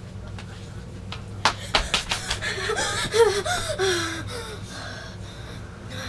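A girl gasping and panting, her breaths wavering in pitch, as if out of breath from running away. Just before it comes a quick run of sharp knocks.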